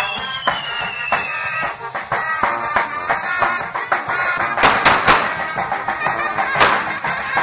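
Fireworks castle burning: spinning spark fountains whistling and crackling, with a whistle falling steadily in pitch over the first second and a half. Louder sharp bangs about five seconds in and again near the end.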